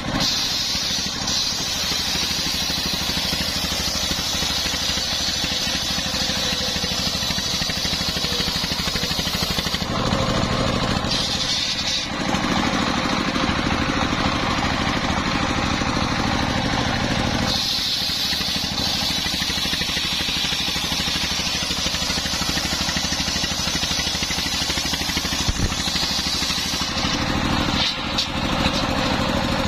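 Circular saw mill powered by a belt-driven stationary engine, its blade ripping a coconut palm trunk lengthwise. The engine runs steadily underneath, while the saw's high cutting noise goes on for about the first ten seconds, drops away for several seconds around the middle as the log is fed back, then returns for most of the rest.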